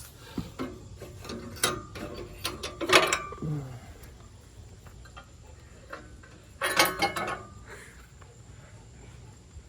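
Metal clanks and rattles from parts of a portable sawmill being worked by hand, in two bunches: a string of knocks over the first few seconds, then a short burst near the middle.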